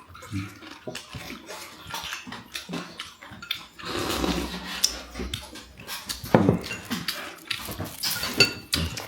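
Tableware at a meal: spoons, chopsticks and bowls clinking and knocking in irregular small clicks, with a couple of louder clatters, along with the sounds of people eating.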